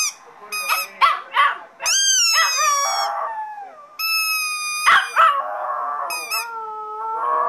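A squeaky toy squeezed in short, high squeaks and a chihuahua howling in answer, long drawn-out cries that slide down in pitch.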